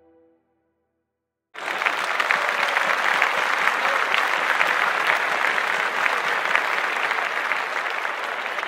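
The last notes of background music die away, then after a moment of silence a crowd's applause starts suddenly about a second and a half in and goes on steadily as dense clapping.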